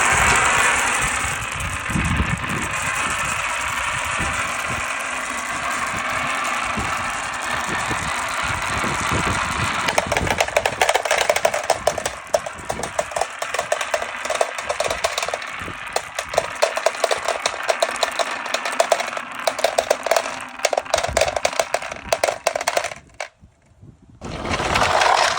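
Many marbles rolling down a plastic marble run. A continuous rolling rush gives way about halfway through to a rapid clatter of marbles clicking against the track and each other. Near the end it stops briefly, then the rolling starts again.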